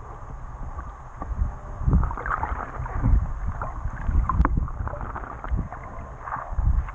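Sea water sloshing and bubbling against a GoPro's waterproof housing held just under the surface, muffled, with irregular low surges every second or two and a few sharp clicks.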